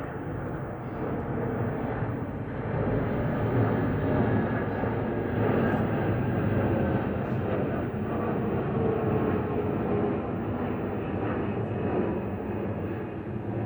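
Jet airliner's engines running with a steady rumble, a faint whine of tones riding over it that drifts slightly lower in pitch partway through.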